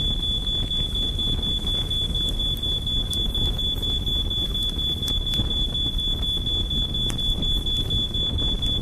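Smoke alarm sounding one continuous high-pitched tone, set off by a kitchen stovetop fire, over a steady low rumbling noise.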